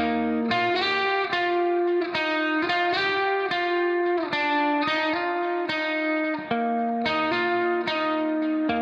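Background music: a plucked-string melody of evenly spaced notes in a steady rhythm.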